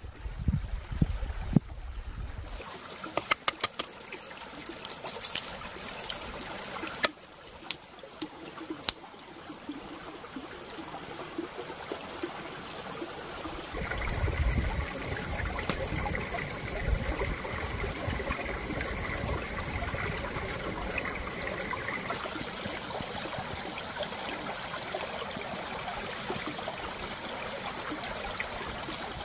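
A shallow stream trickling and babbling over rocks, louder for several seconds in the middle. A few sharp knocks and clicks sound in the first several seconds.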